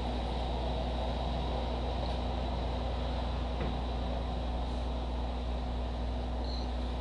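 Steady low hum with a constant hiss of background noise, unchanging throughout, with no distinct events.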